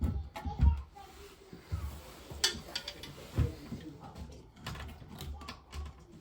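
Irregular clicks and knocks, with a few low thumps, of hand-tool work.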